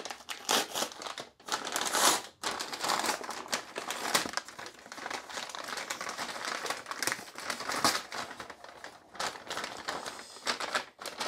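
Packaging crinkling and rustling on and off, with irregular crackles, as a parcel is unpacked by hand.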